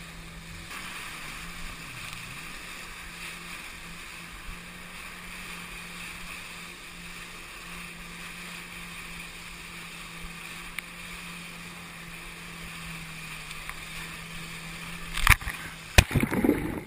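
Jet ski engine running at a steady cruising speed, a low even hum under the rush of water and wind. Near the end come a few sharp knocks and a short burst of splashing.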